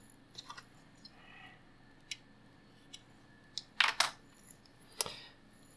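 3M VHB double-sided tape being pulled off its roll and pressed along a rubber edge seal: a few small clicks and crackles, then two short sticky rips, the loudest a little under four seconds in and another about five seconds in.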